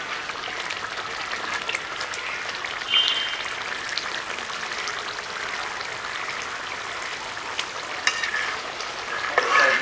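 Prawn curry sizzling and bubbling in an iron karahi, a steady fine crackle. A metal spatula scrapes and knocks against the pan about three seconds in and again near the end.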